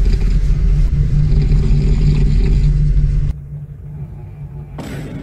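Loud, steady rumble of a train running, heard from inside the passenger carriage. It cuts off abruptly about three seconds in, leaving a much quieter background with one short burst near the end.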